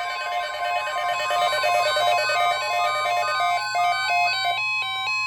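NOAA Weather Radio 1050 Hz warning alarm tone, a single steady high tone that announces a broadcast alert, with a fast run of electronic beeps at changing pitches sounding over it. The beeps thin out toward the end.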